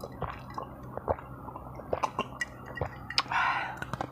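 A person drinking from a glass: a string of gulps and swallowing clicks, then a breathy exhale a little past three seconds in.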